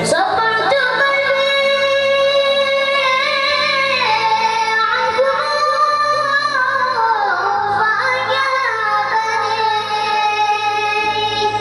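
Solo mawwal: a high voice sings long, ornamented notes that slide between pitches, with no steady beat.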